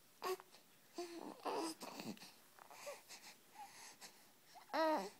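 Wordless vocal noises: a handful of short breathy, wheezy squeaks and grunts, ending in a louder pitched squeal about five seconds in that rises and falls.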